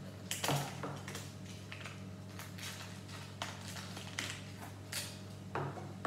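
A small cardboard toy box and its foil wrappers being handled and opened by hand: scattered light clicks and rustles, over a low steady hum.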